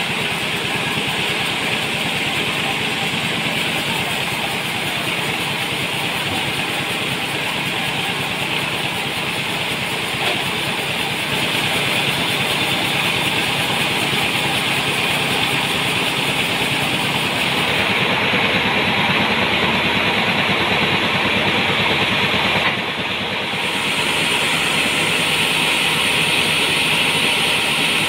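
Band sawmill running steadily, its motor and blade cutting lengthwise through a large trembesi (rain tree) log with a continuous hiss and drone. The sound changes in tone about two-thirds of the way through and dips briefly.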